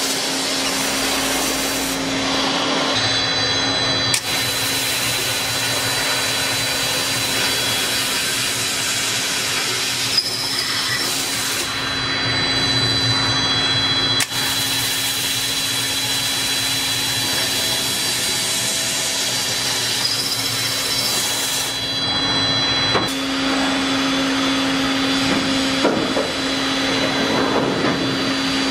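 CNC beam drill line boring holes in a steel H-beam with twist drills, first through the web and then through a flange: a steady machine hum with a high whine over it. The sound changes abruptly several times.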